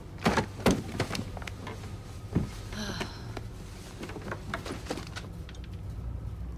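A few sharp knocks and rustles of a person moving about and handling things, with a short high creak about three seconds in, over a low steady rumble.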